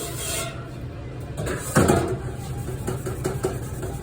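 Dishes and utensils clattering now and then over a steady low machine hum, with one louder clunk a little under two seconds in.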